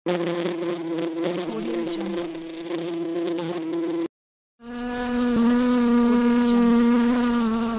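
Bee flying: a steady buzzing drone of its wings that stops dead about four seconds in. After a brief silence a second, higher-pitched buzz starts and begins to fade near the end.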